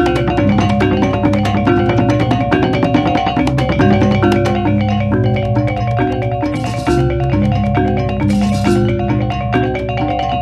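Instrumental music: a repeating pattern of short, struck-sounding pitched notes over a steady bass line, with two brief bursts of hiss in the second half.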